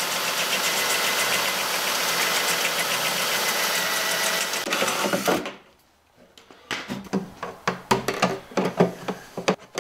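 Cordless drill spinning a hole saw through the plastic wall of a fuel tank: a steady, loud whir for about five seconds that stops abruptly. It is followed by scattered clicks and knocks of the plastic tank and its fitting being handled.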